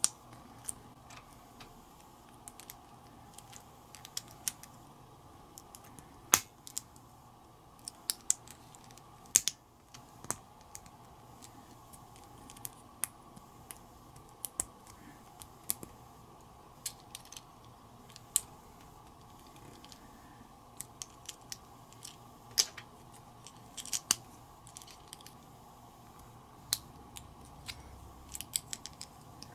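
Small plastic building bricks being handled and pressed together: irregular sharp clicks and clacks, a few louder than the rest, over a faint steady hum.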